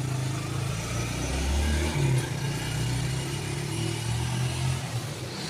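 Vehicle engine idling steadily, its low hum shifting slightly in pitch about two seconds in.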